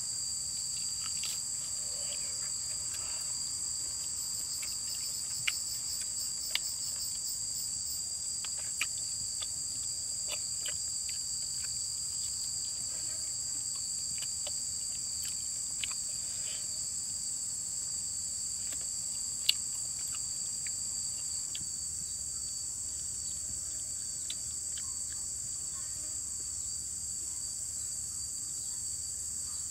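Steady, high-pitched drone of insects, unbroken throughout, with a few short clicks and taps on top, the sharpest about two-thirds of the way in.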